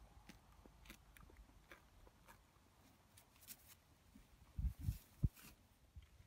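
A horse tearing and chewing grass close by, faint crackling crunches at an uneven pace. A few louder low thumps come about four and a half to five seconds in.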